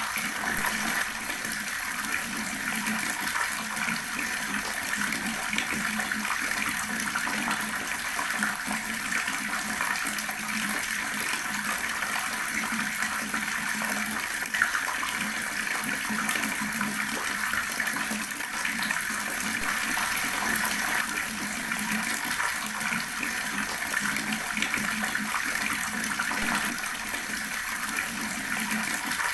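Water running steadily from a tap and splashing, with one brief sharp click about halfway through.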